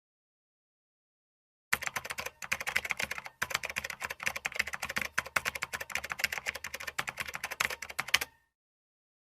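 Typing on a computer keyboard: a rapid, continuous run of keystroke clicks that starts a couple of seconds in, with two short pauses, and stops a second before the end.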